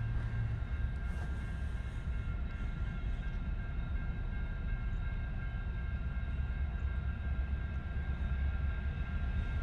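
Distant EMD SD60M and SD70MAC diesel locomotives approaching: a steady low rumble with a faint steady high whine above it.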